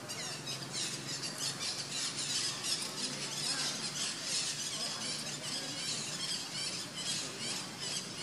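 Rapid, high-pitched squealing calls, many a second and overlapping, from animals that are not seen.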